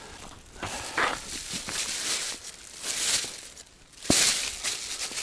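A plastic bag crinkling and rustling as caught fish are picked up off the ice and put into it, with crunching steps on the ice. A sharp knock a little after four seconds in is the loudest sound.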